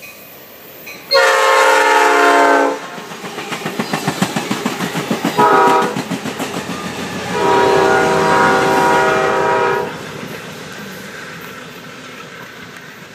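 Amtrak bilevel passenger train passing close by, its chime horn sounding a long blast, a short one and another long one. Between the blasts the wheels clack rapidly over the rail joints, and the rumble fades away after the last blast as the train recedes.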